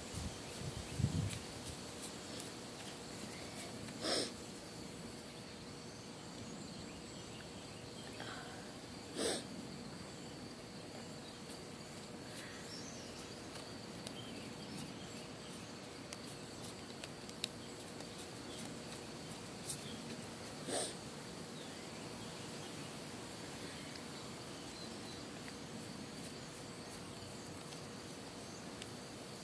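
Faint outdoor background: a steady hiss with thin high insect-like tones and a few faint clicks, broken three times by a short breathy puff, such as a sniff or a breath near the microphone.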